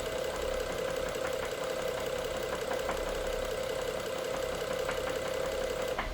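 BMW N55 3.0-litre turbocharged straight-six running steadily with a knock, the fault the owner is chasing. The sound cuts off suddenly near the end.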